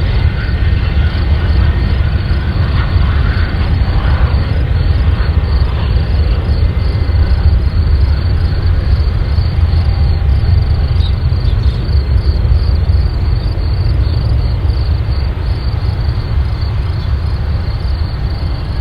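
Airplane engine noise: a loud, steady, deep rumble with a hiss above it that holds unchanged throughout.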